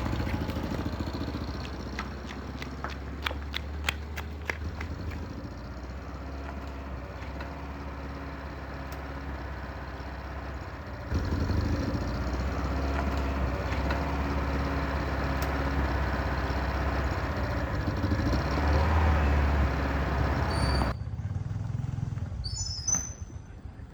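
Restored pickup truck engine running steadily, heard in separate stretches that change abruptly twice. A few short high chirps near the end.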